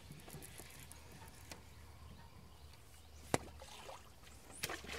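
Fishing rod and reel being handled: faint rustling with two sharp clicks, the first past the middle and the second near the end.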